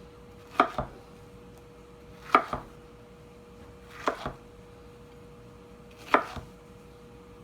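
Pineapple being chopped: four evenly spaced strokes about two seconds apart, each a quick double knock, over a faint steady hum.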